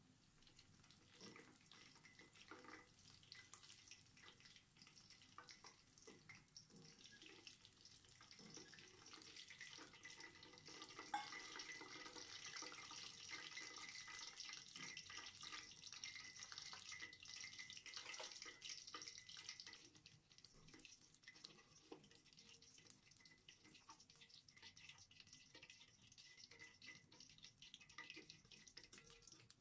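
Hot cooking oil crackling and sizzling around sliced dough pieces deep-frying in a stainless steel pot, a dense patter of small pops that swells for a while in the middle, with a single sharp click about a third of the way through.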